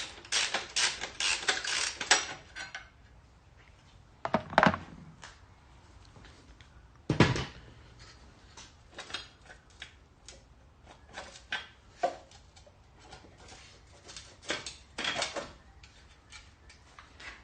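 Ratchet wrench clicking rapidly for about two seconds as a bolt is undone, then two sharp knocks and scattered light clicks and taps as engine parts are handled.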